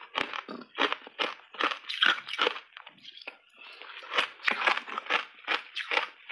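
Shaved ice coated in matcha powder being crunched between the teeth in quick chewing strokes, about two to three a second, close on a lapel mic, with a short lull about three seconds in.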